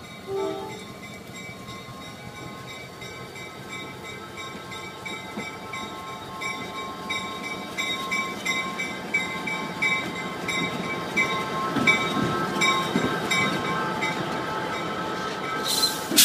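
Diesel locomotive #2198 rolling slowly past at close range, engine running and wheels on the rails, growing louder as it nears. A grade-crossing bell rings steadily throughout, a short horn toot sounds about half a second in, and there is a brief hiss near the end.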